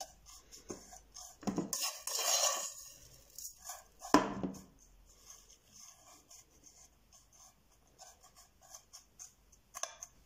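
A wooden spoon pushing and patting dry, toasted shredded kadayıf across a glass baking dish: a dry rustle with light scrapes and taps. There is a louder rustle about two seconds in and a single sharp, loud sound about four seconds in.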